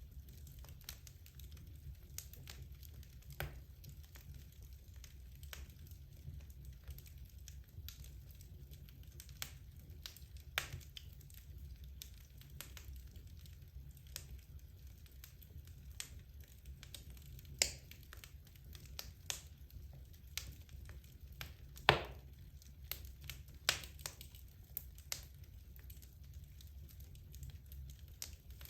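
Wood logs burning in a fireplace: irregular sharp crackles and pops over a low, steady rumble of the fire, with one much louder pop about twenty-two seconds in.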